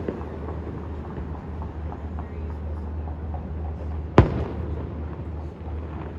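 Fireworks display: one loud aerial shell burst about four seconds in, with a brief echoing tail, after a smaller pop at the start, over a steady low hum.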